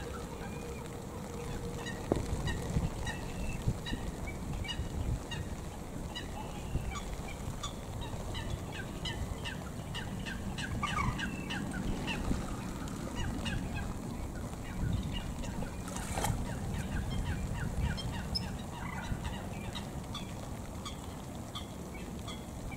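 A string of short, high bird chirps and calls, thickest around the middle, over the steady hiss of light rain, with one sharp click about two-thirds of the way through.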